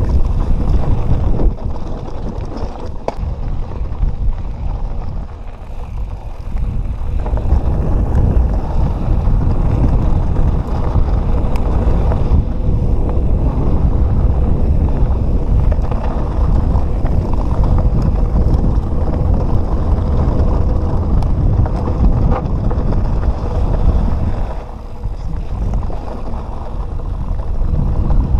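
Wind buffeting the GoPro of a Canyon Nerve mountain bike riding down a rough trail, with scattered clicks and rattles from the bike over the ground. The noise eases briefly twice, about five seconds in and near the end.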